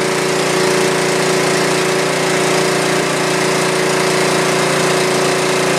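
Snapper riding lawn mower's engine running steadily at one constant speed.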